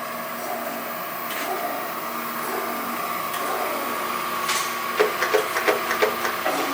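Chevalier FSG-1020AD surface grinder running in automatic cycle, a steady machine hum as its hydraulic table traverses back and forth. A quick run of sharp clicks comes about five seconds in.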